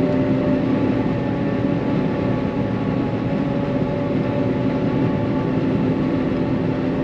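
John Deere self-propelled forage harvester working hard under load, chopping maize, heard from inside the cab: a steady engine and cutterhead drone with a constant hum.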